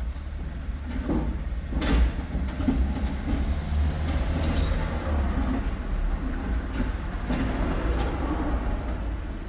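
Street traffic noise: a steady low rumble of passing vehicles with a few sharp knocks and clatters, the loudest about two seconds in.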